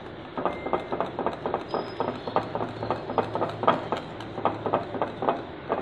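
Wire balloon whisk beating thick cake batter in a glass bowl, its wires clicking against the glass about five times a second.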